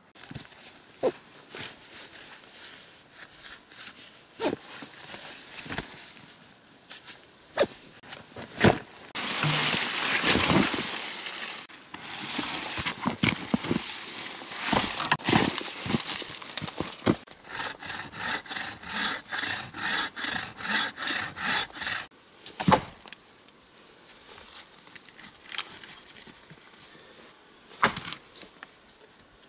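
A fallen branch being cut by hand for firewood. In the middle comes a fast, even run of strokes through the wood, about three a second, and twigs snap and knock around it.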